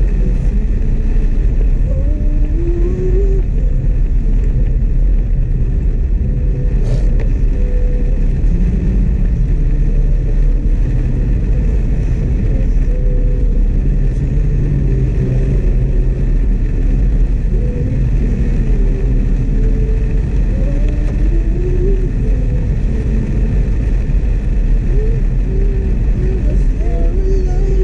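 Steady in-cabin driving noise of a Suzuki S-Presso's small three-cylinder engine and its tyres on a wet road: a constant low rumble with a light hiss over it.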